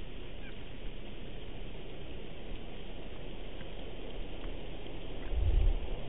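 Steady wind noise on an outdoor nest-camera microphone in a snowstorm, with a low rumble from a gust buffeting the microphone about five seconds in.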